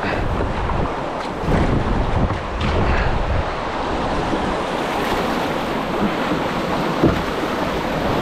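Rushing water of a river rapid, a steady roar with wind buffeting the microphone, and a single short knock about seven seconds in.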